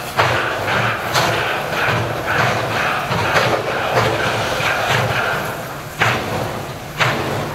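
SY class 2-8-2 steam locomotive working hard with a heavy loaded coal train on an incline, its exhaust beating sharply and unevenly. The beats come quicker and fainter through the middle, then slow to two heavy chuffs about a second apart near the end, typical of a locomotive struggling for grip and slipping.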